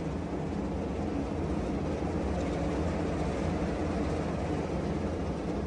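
Steady low hum of a JK Machinery VibroMax grain cleaner running, its sieve housing shaken by two electric vibration motors. The vibration is soaked up by the spring mounts, so the machine runs smoothly while standing unbolted on asphalt.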